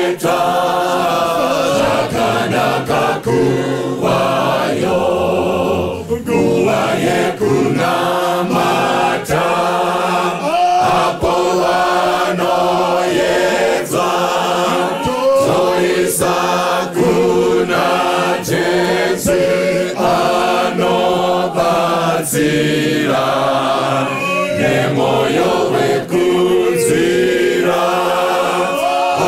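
Church choir singing a gospel song a cappella, a lead singer on microphone with the full choir answering, hands clapping along to the beat.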